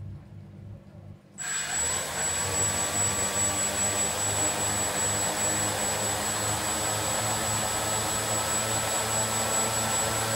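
Walkera QR X350 quadcopter's four brushless motors and propellers spinning up suddenly about a second and a half in, then running steadily at idle with the drone still on the ground: an even whirr with a steady high whine and a low pulsing hum.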